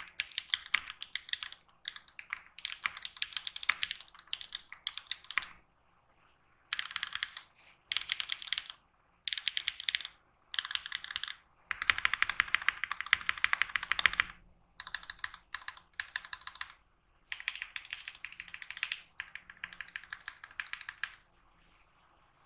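Typing on a Phantom65 mechanical keyboard with lubed Gateron Milky Yellow linear switches and GMK keycaps: runs of fast keystrokes broken by short pauses, with the longest steady run about halfway through. The typing stops a second or so before the end.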